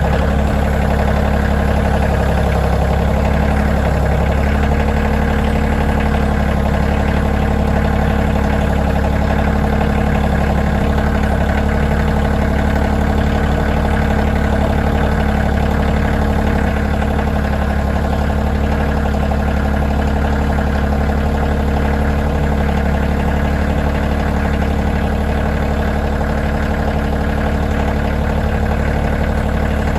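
Kioti CK2610 compact tractor's three-cylinder diesel engine running steadily while the tractor slowly moves a trailer hitched to its front loader bucket.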